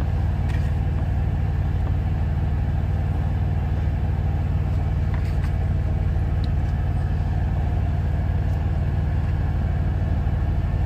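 Truck engine idling, heard inside the cab: a steady low rumble with a fast even pulse. A few faint clicks sound over it.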